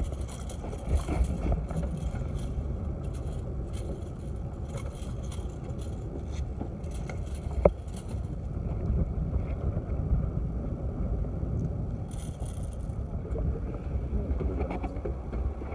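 Steady low rumble of water and wind around a small fishing boat's hull, with a few light knocks and one sharp click about eight seconds in.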